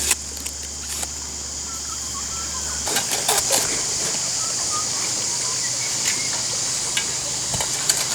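Concrete mixer turning with sand in the drum: a steady hiss over a low hum, with scattered clicks and a cluster of them about three seconds in. Faint bird chirps sound behind it.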